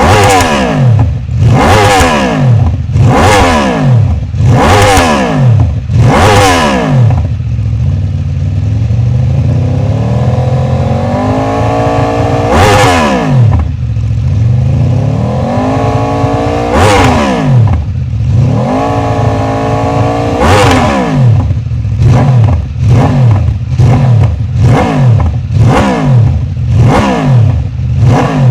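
Aprilia RSV4's V4 engine through an SC-Project GP22 slip-on exhaust, revved while stationary: a quick run of throttle blips, a short idle, three slower revs that climb, hold briefly and drop back, then a fast string of short blips near the end.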